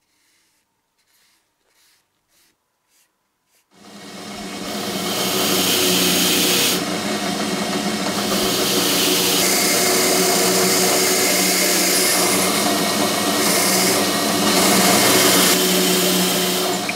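Faint strokes of a brush spreading stain, about two a second, then about four seconds in a drill spins up a wire wheel brush. A steady motor hum runs under the hiss of the wire bristles scrubbing small metal gears, the scrubbing changing as each gear is pressed in and turned.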